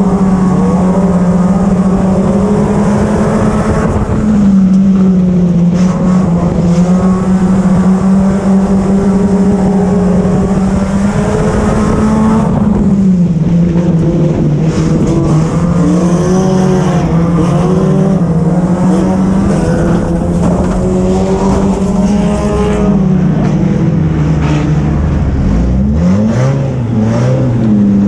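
Four-cylinder race car engine heard from inside the cockpit, held at high revs and dipping briefly every several seconds as it laps. Near the end the revs fall low for a few seconds, then climb again.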